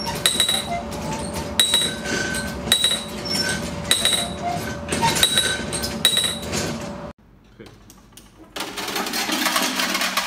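Hand-cranked steel machine striking its row of metal strips: irregular metallic clinks, each with a short ring, over a steady tone. It cuts off about seven seconds in, and a quieter, even rushing noise follows.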